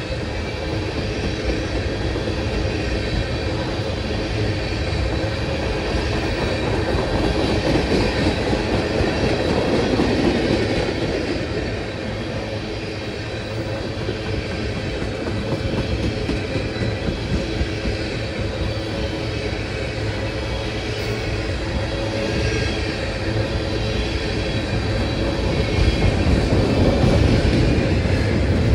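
Long freight train rolling past on steel rails, a continuous rumble of wheels on track that grows louder twice, around eight to ten seconds in and again near the end.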